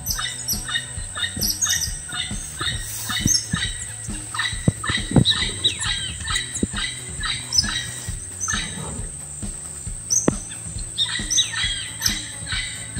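Many small birds chirping and calling in quick succession, several overlapping at once, over a steady high-pitched tone.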